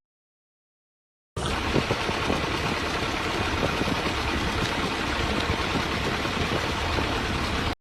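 Total silence for just over a second, then an engine running steadily with a few short knocks over it.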